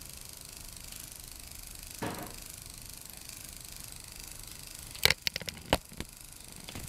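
A cat jumping up onto a wooden cabinet: a quick run of sharp knocks and claw clicks on the wood about five seconds in, after a single soft thump about two seconds in.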